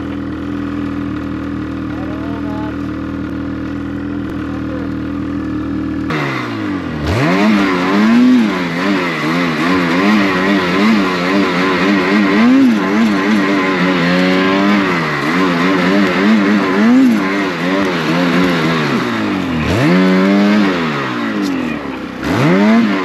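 Snowmobile engine running at a steady note, then from about six seconds in revved hard again and again, its pitch rising and falling with each throttle burst. The sled is stuck nose-deep in powder snow.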